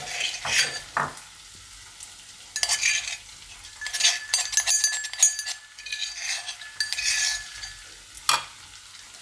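A spoon scraping pounded garlic-and-chilli paste out of a small metal mortar into a bowl, in several uneven scraping strokes, with a sharp knock near the end.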